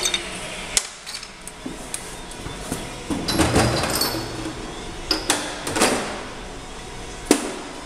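Metal tools being handled and set down: a series of sharp clinks and knocks, some with a short metallic ring, the sharpest near the end.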